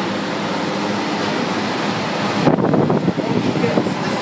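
Steady whir of refrigeration unit fans. About two and a half seconds in, louder, uneven, choppy sound joins it.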